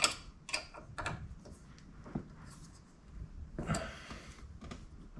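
Light clicks and taps of a cage-mounted Scosche round convex mirror being moved on its mount by hand, showing a little play in the mount, with a brief rustle about three and a half seconds in.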